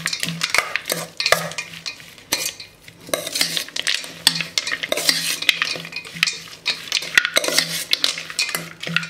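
A steel spoon stirring and scraping around a stainless steel bowl, mixing grated vegetables and peanuts, with irregular clinks and scrapes of metal on metal.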